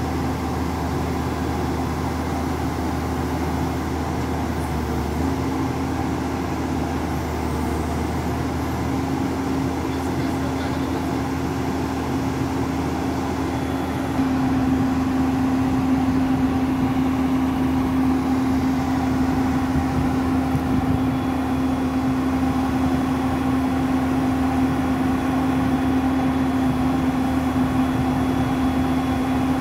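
JCB 205 tracked excavator's diesel engine running steadily at one pitch while the machine levers itself down off a trailer on its bucket; it gets louder about halfway through.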